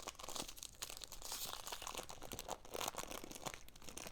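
Foil wrapper of a Pokémon card booster pack crinkling and tearing as the pack is opened, in a dense run of irregular crackles.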